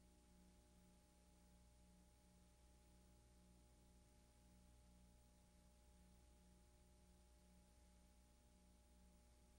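Near silence: only a faint, steady electrical hum with a low pulsing buzz about twice a second and light hiss. No sound from the scene itself is audible.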